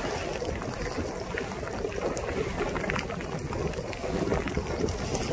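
Steady rushing noise of wind buffeting the microphone and water around a boat, with scattered light ticks of rain.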